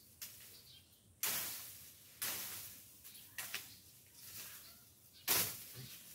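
Brisk strokes through grass and leafy growth while weeds are cleared by hand. Each stroke is a sharp swish that rustles away, about five of them roughly a second apart, with the loudest near the end.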